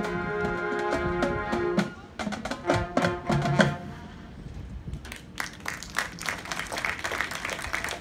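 Marching band brass and winds holding a loud chord, then a few sharp full-band and drum hits about two to four seconds in as the music stops. From about five seconds in, audience applause starts.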